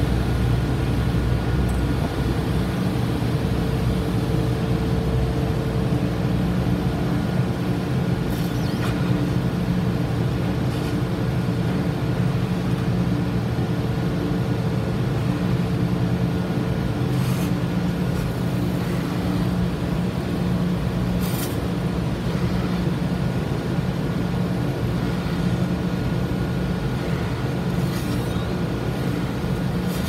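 Steady machinery drone of a ship's engine room, a low hum holding several pitches, with the hiss of a gas brazing torch as a leak in an air-conditioning compressor is silver-brazed. A few faint ticks.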